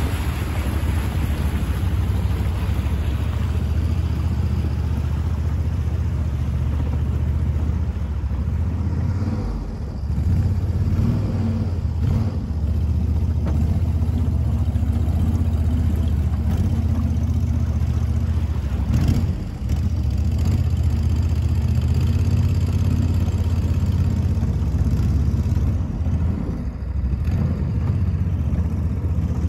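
Duck boat's engine running steadily under way, a constant low drone. It eases off briefly twice, about ten and twenty seconds in.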